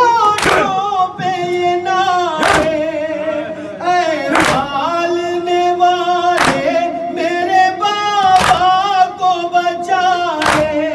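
Male voices singing a noha, a Shia lament, with a wavering melody on long held notes, led by one voice on a microphone. A loud unison matam strike, hands beaten on chests, lands about every two seconds, six times.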